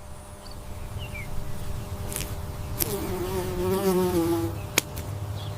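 A flying insect buzzing over a low, rumbling background. The buzz wavers in pitch for about a second and a half past the middle, and a couple of sharp clicks come through.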